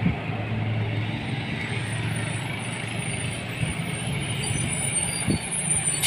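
Box delivery truck's engine running steadily as the truck approaches and draws up close, with a short hiss of air brakes right at the end.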